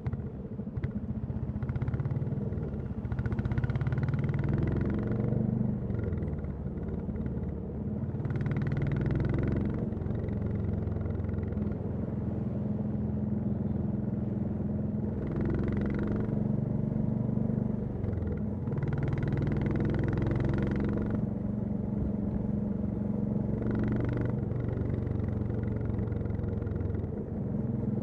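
Royal Enfield Classic 350's single-cylinder engine and exhaust running while riding, the engine note rising and falling several times with throttle and gear changes, with about five brief surges of brighter noise a few seconds apart.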